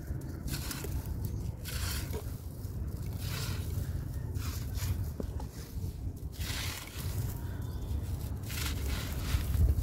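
Dry, gritty sandy chunks crumbling between the hands, with loose grains pouring and pattering onto the dusty pile in uneven waves about once a second, over a steady low rumble.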